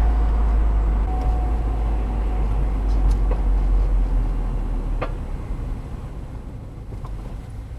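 Car rumbling low, the rumble dying away after about five seconds as it comes to rest, with a few sharp clicks from the brakes: a pair about three seconds in, the strongest about five seconds in and a faint one near the end. These are the brake click-clunk sounds.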